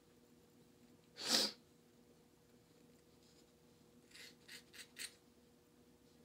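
Four quick rasping scrapes, a little over four seconds in, from dreadlocks being worked at the roots by hand and tool. They come after a single louder, sharp hiss-like burst about a second in.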